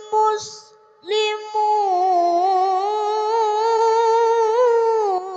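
A young boy reciting the Qur'an in a melodic, sung style: a quick breath in near the start, then one long held note that wavers and ornaments in pitch.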